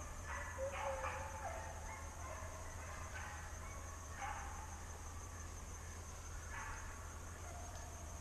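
A pack of deer hounds baying on a drive, several drawn-out calls that overlap and glide in pitch, coming in bunches a few seconds apart.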